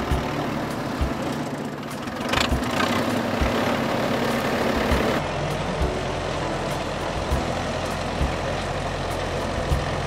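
Small diesel forest-railway locomotive running, a steady low engine drone with a knock about every second or so, like wheels passing over rail joints.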